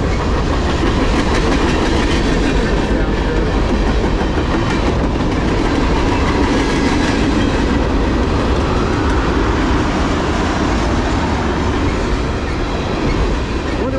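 A long freight train's cars (hoppers, gondolas and tank cars) rolling past at speed. Their steel wheels on the rails make a loud, steady rumble.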